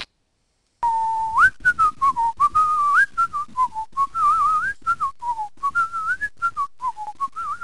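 A cartoon sound effect of a person whistling a wandering, warbling tune. It starts just under a second in and is broken by many short gaps. This is typical of the Cartoon Sound Machine app's 'Whistler' effect.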